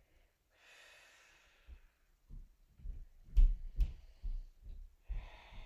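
A woman breathing slowly during a stretch: a long soft breath, then another near the end. Between the two breaths come a few soft low bumps and two sharp clicks about half a second apart, which are the loudest sounds.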